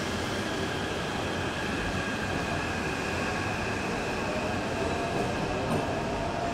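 Taipei MRT C381 electric multiple unit pulling out of the station: running-gear rumble with a steady electric whine over it as the train moves off.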